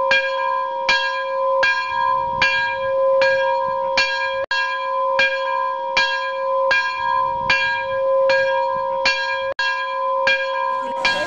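A single bell struck over and over at an even pace, about three strikes every two seconds, each ring still sounding when the next strike comes; the sound cuts out for an instant twice.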